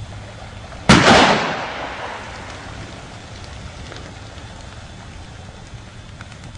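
A single shotgun shot about a second in, its report echoing and fading away over about a second.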